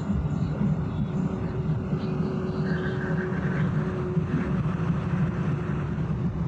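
A steady low rumble of a running vehicle.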